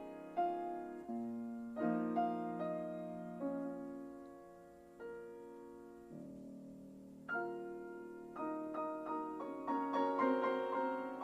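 Slow, soft background piano music, single notes and chords struck and left to fade, thinning out in the middle and growing busier near the end.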